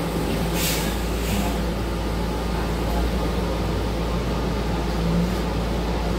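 City bus moving, heard from inside the passenger cabin: a steady low engine and road rumble, with two short hisses about a second in.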